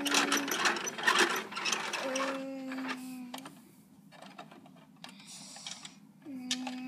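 Plastic clicking and rattling as the rear loader and bin of a toy garbage truck are worked by hand. A steady hum comes and goes in three stretches over the clatter.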